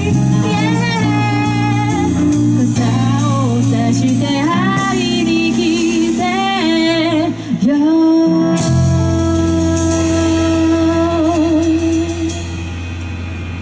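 Band playing live behind a female singer, her melodic lines sung with vibrato, closing on a long held note about eight seconds in over a sustained low chord. The held note fades near the end as the song ends.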